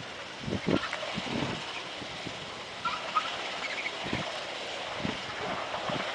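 Railway ballast-cleaning machine working on the track: a steady rushing, rattling din from the machine and its spoil conveyor, with irregular gusts of wind buffeting the microphone.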